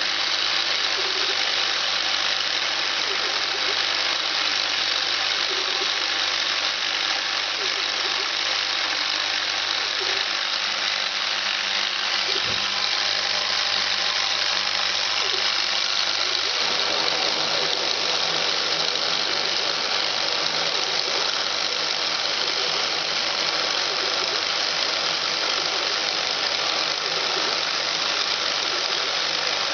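Hobbymat BFE65 milling machine, converted to CNC, running a milling cut: a steady machine whirr from the spindle and cutter over a low hum. The sound changes about sixteen seconds in, as the cut or feed changes.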